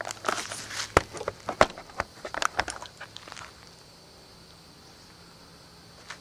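Camera handling noise as the camera is carried and set back down: rustling, footsteps and a few sharp knocks over about three seconds, then only faint background.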